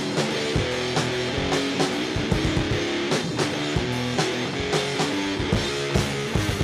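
Rock band playing an instrumental passage: strummed electric guitar over a drum kit keeping a steady beat.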